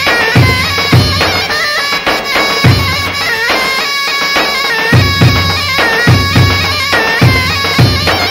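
Loud dabke dance music: a sustained wind-instrument melody with quick curling turns, over a steady, heavy drum beat.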